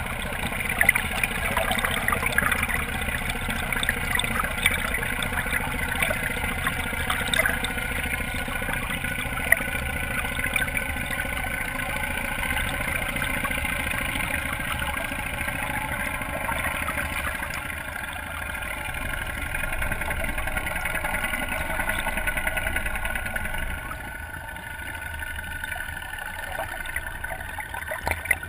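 Motorboat engine running steadily, with water rushing along the hull and a few sharp ticks, turning quieter about 18 seconds in and again near the end.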